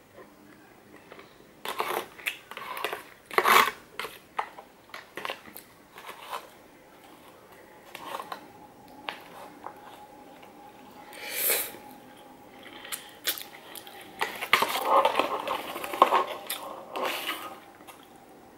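Metal fork scraping and clicking against an aluminium foil takeaway tray while chow mein noodles are picked up, with close-up chewing of the noodles. The sounds come in short, irregular bursts, busiest near the start and again toward the end.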